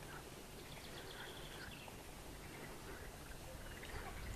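Birds chirping faintly in short scattered calls over a low, steady outdoor background rumble.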